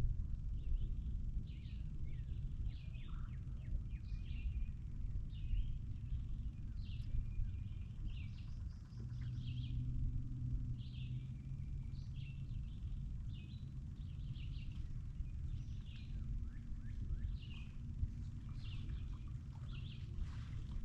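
Wild songbirds chirping, short high calls repeated about once or twice a second, over a steady low outdoor rumble.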